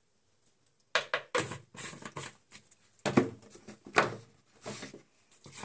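Irregular knocks and rustles of a spice container being handled and shaken as red chilli powder is sprinkled over chopped vegetables, starting about a second in.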